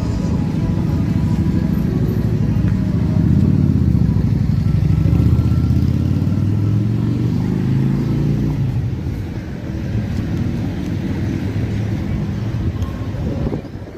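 A motor vehicle's engine running close by in street traffic, its pitch dropping and then rising again midway. It fades away just before the end.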